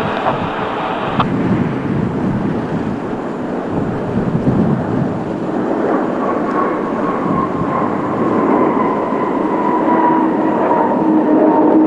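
Jet airliner's engines running loud and steady as it passes close by, with a whine that slowly falls in pitch over the second half.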